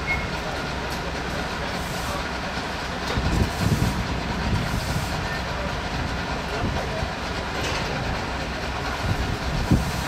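Steady running of a rail catenary maintenance car, a continuous low mechanical rumble, with louder low swells about three seconds in and again near the end.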